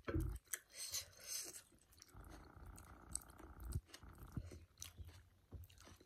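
Close-up eating sounds: chewing, and fingers squishing and tearing flatbread in a thick curry sauce. They come as a quiet, irregular scatter of soft wet clicks and smacks, with a low thump at the start.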